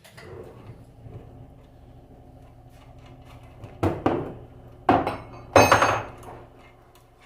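Metal tools and parts clattering on a workbench: three clanks, about four, five and six seconds in, the last with a brief metallic ring, over a steady low hum.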